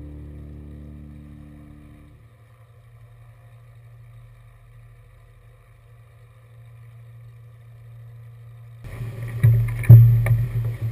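Background music fading out over the first two seconds, leaving a faint low hum; about nine seconds in, loud rumbling noise with several sharp knocks cuts in suddenly.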